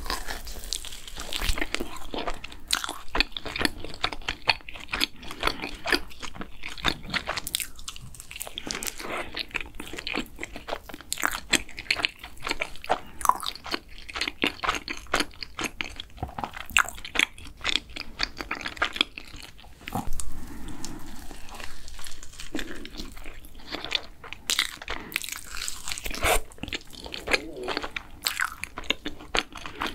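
Close-miked biting and chewing of a glazed blueberry cream cheese doughnut: a dense run of short mouth clicks from bites and chewing, with a few louder bites along the way.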